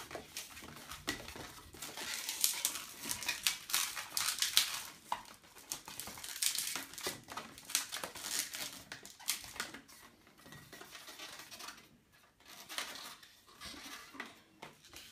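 A long 160-size latex modelling balloon being bent and twisted by hand: irregular rubbery squeaks and rubbing.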